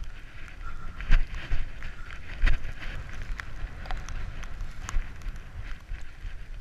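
Skis running through soft powder snow with wind buffeting the microphone as a low rumble, and scattered sharp knocks and clicks, the loudest about a second in and again about two and a half seconds in.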